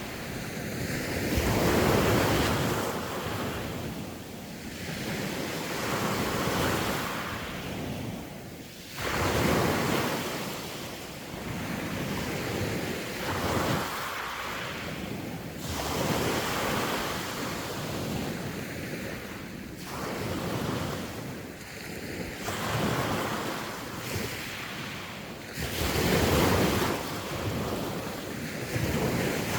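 Sea waves breaking and washing ashore in repeated swells a few seconds apart, with wind buffeting the microphone.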